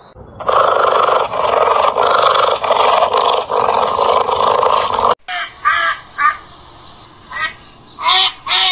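A loud, harsh, rasping animal sound runs for about five seconds with short breaks. It then cuts off sharply, and mallard ducks give a run of short quacks.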